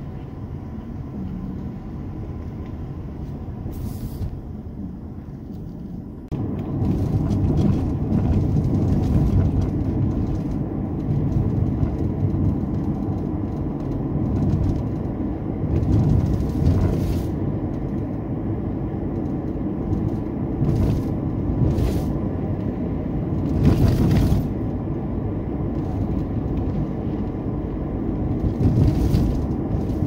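Car driving along a road: a steady low rumble of engine and tyres that grows louder about six seconds in, with occasional short knocks.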